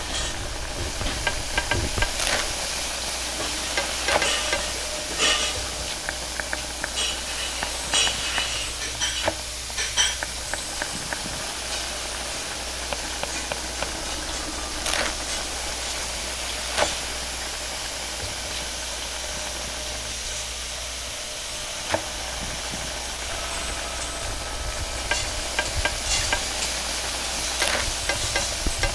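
Stir-frying in a wok over a high-powered gas wok burner: a steady hiss of flame and sizzling food, with many short metallic clinks and scrapes as the wok is stirred and tossed, thickest in the first ten seconds and again near the end.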